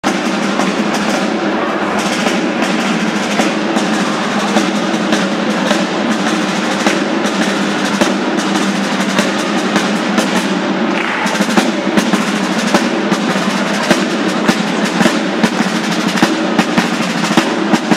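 Drums playing a fast snare rhythm with bass drum, dense strokes throughout, over steady held notes.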